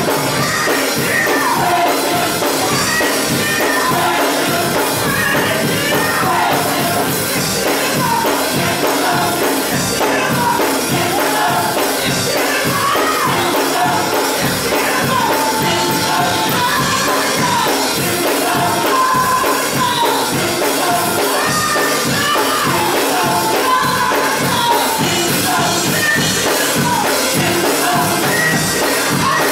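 Gospel choir singing over a live band with a steady beat.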